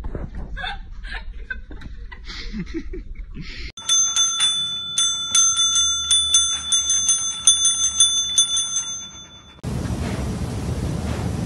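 Counter service bell struck rapidly over and over by a dog's paw, about three dings a second, starting about four seconds in and stopping about six seconds later.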